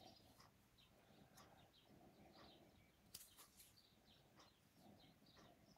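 Near silence: room tone with faint, scattered high chirps and one soft click about three seconds in.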